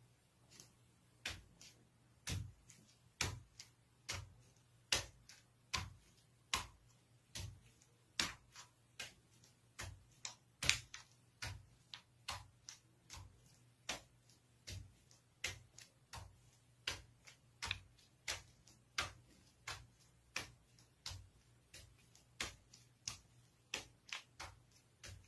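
Bare feet stamping on a paper sheet on a wooden floor: sharp slaps about once or twice a second, uneven in spacing and strength, over a faint steady low hum.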